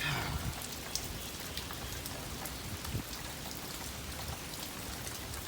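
Wind-driven rain falling steadily, with many small drop ticks, in strong gusty wind.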